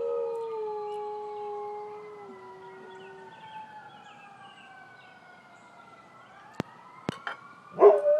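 A dog howls along with a distant ambulance siren. The howl slides down and fades out about three seconds in while the siren keeps wailing, slowly rising and falling. Two sharp clicks come near the end, then the dog breaks into a loud howl again.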